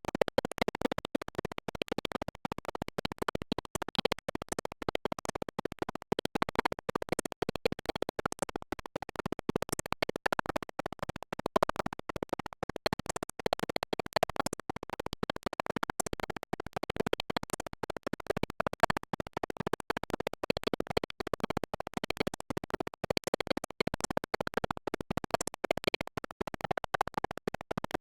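Badly broken-up recording: the audio is chopped into rapid fragments with dropouts many times a second, a stuttering, scratchy glitch that leaves nothing intelligible.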